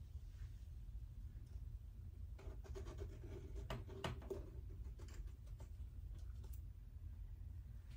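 Faint scraping, rubbing and light clicks as drips of wet acrylic pouring paint are wiped from the edge of the canvas, busiest a couple of seconds in, over a steady low hum.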